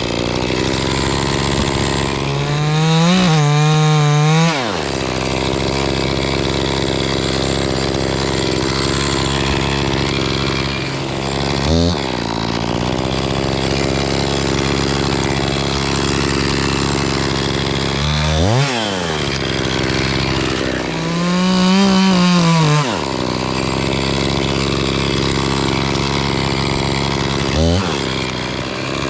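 Gas chainsaw idling steadily, blipped up to throttle briefly three times. There are two longer full-throttle runs, about three seconds in and about twenty-one seconds in, whose pitch climbs and then sags.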